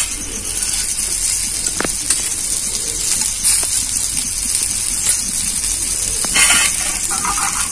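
Egg-topped bread slices sizzling steadily in oil on a hot flat iron tawa, as a little extra oil is spooned around their edges to keep them from sticking.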